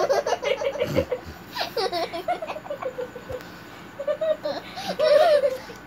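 A young child laughing in repeated short bursts, with a quieter lull in the middle.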